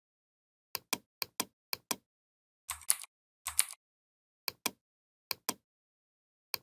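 Computer mouse clicks, each a quick press-and-release pair, about six in all, used to select and adjust shapes. Around three seconds in come two duller keyboard clacks, the Ctrl + G keystrokes that group the shapes.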